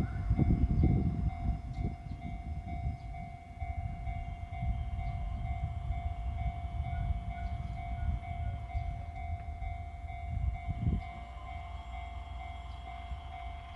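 Train passing over a level crossing: a loud rumble and clatter of wheels at the start that fades over the first few seconds into a low rumble. The crossing's warning alarm keeps ringing steadily throughout.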